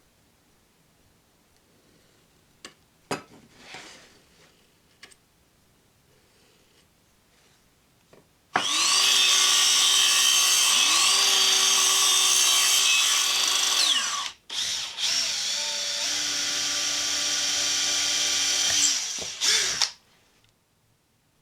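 An electric drill running in two long runs of about five seconds each, its motor pitch dipping and rising, after a few light knocks.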